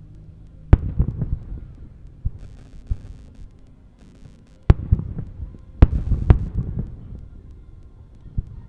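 Distant aerial firework shells bursting with sharp bangs: one about a second in, then a cluster of three between about four and a half and six and a half seconds, each followed by a low rumble and smaller crackles.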